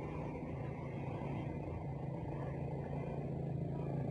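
An engine running steadily in the background, a low even drone.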